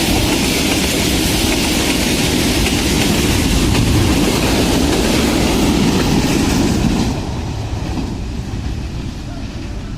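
Train running on the rails with loud wheel and track noise, which drops off sharply about seven seconds in.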